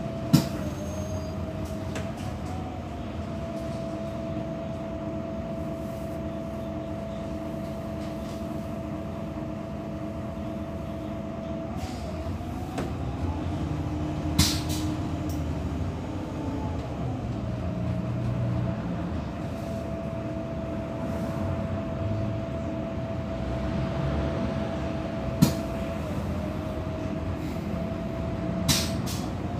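Interior sound of an electric transit vehicle under way: the steady high whine of its electric traction drive over a low rumble, the whine sliding up and back down in pitch about halfway through as the vehicle changes speed. A few sharp clicks stand out.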